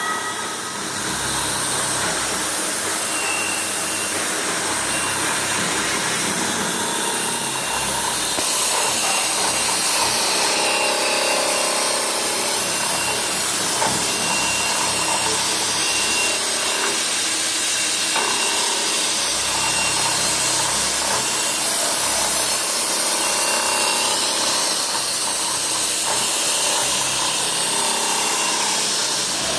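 CNC milling machine cutting a casting mold: steady machining noise of the spindle and cutter, with a faint high whistle that comes and goes.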